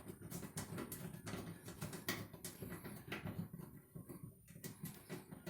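Irregular clicks, taps and rattling as the screw holding the dryer's ground wire is unscrewed from the sheet-metal cabinet.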